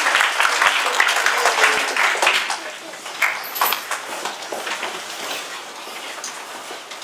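Audience applause from a hall full of schoolchildren, dying away about three seconds in to quieter room noise with a few scattered claps.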